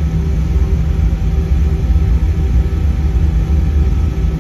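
Jet airliner cabin noise as the plane taxis: a steady low rumble from the engines at idle and the rolling airframe, with a few constant humming tones over it.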